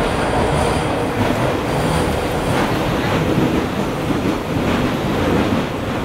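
Inside a Hawker Siddeley H5 subway car running on the track: a steady rumble of wheels and running gear, with a faint high wheel squeal in the first couple of seconds.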